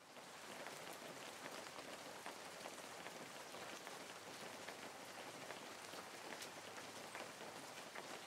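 Steady, faint hiss like falling rain, with scattered light ticks.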